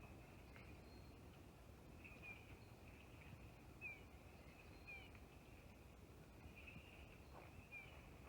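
Faint woodland ambience: a steady high-pitched chorus in the background, with short bird chirps about six times, each a quick downward slur.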